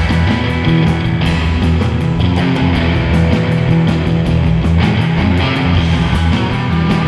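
Live instrumental surf rock band: two electric guitars over a drum kit, with a steady cymbal beat.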